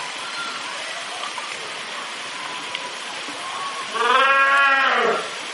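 A fur seal gives one loud bleating call about four seconds in, lasting about a second, its pitch rising and then falling. A steady rush of pool water runs underneath.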